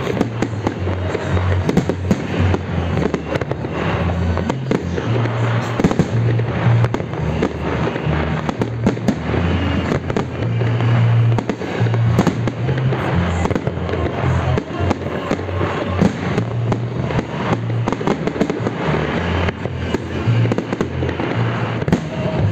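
Aerial fireworks shells bursting in a dense, continuous run of bangs and crackles.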